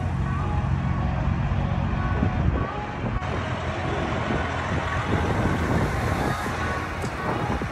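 Freightliner Columbia semi-truck's diesel engine running as the truck drives slowly closer, a steady low rumble.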